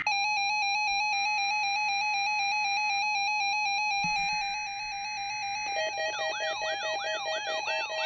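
Several NOAA weather radios sounding their electronic alert tones together for a Required Weekly Test: rapid, steady synthetic beeping on a fixed pitch. About six seconds in, another receiver joins with a repeating up-and-down chirping warble.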